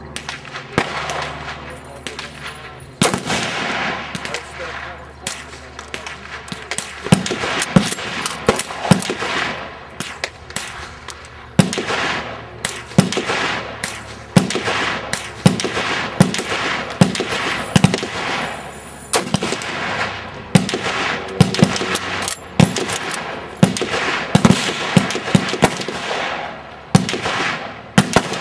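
Steady gunfire on an outdoor shooting range: dozens of shots from several guns, often several a second and overlapping, some much louder and sharper than the rest.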